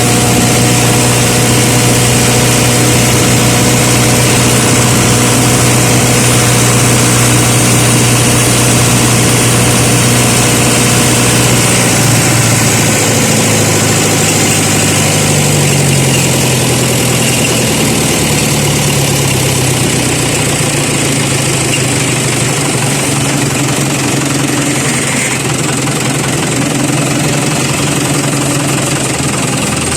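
An engine running steadily at idle, its pitch wavering briefly about halfway through before settling again.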